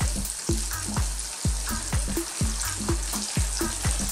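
Hot cooking oil sizzling steadily around cornflour-coated fish frying in a pan, the fish still cooking through. Background music with a steady beat of about two drum strokes a second plays over it and is the loudest sound.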